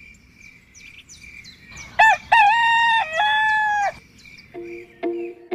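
A rooster crows once, a loud cock-a-doodle-doo about two seconds in, over faint chirping of small birds. Music starts near the end.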